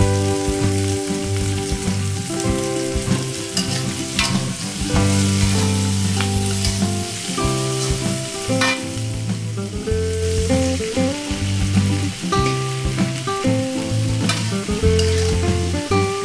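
Leunca berries and chillies sizzling as they stir-fry in a wok, with a metal spatula scraping against the pan a few times. Soft background music of slow held chords plays throughout.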